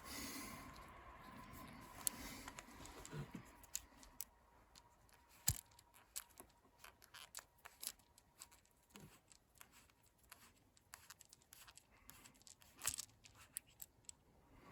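Faint scattered clicks and scratches of hands twisting a rubber spark plug boot off a snowmobile's ignition wire, with a sharper click about five and a half seconds in.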